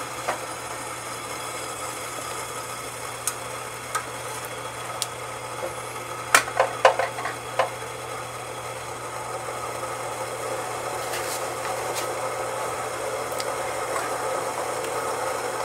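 Pot of water heating on the stove with a tomato blanching in it: a steady low hum and rumble that grows slowly louder, with a few sharp ticks about six to eight seconds in.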